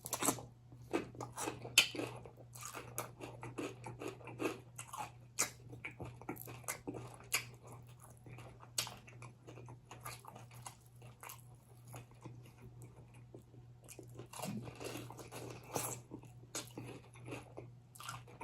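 Close-up mukbang eating sounds: chewing and biting into chicken wings, with irregular wet smacks, crunches and clicks of the mouth.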